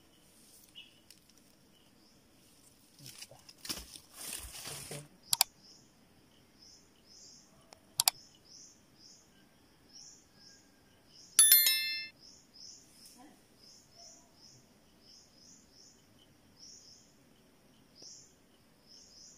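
Outdoor ambience with short, high chirps repeating irregularly, about once or twice a second. A burst of rustling noise comes about four seconds in, then two sharp clicks, and a loud, brief, high-pitched squeal about eleven seconds in.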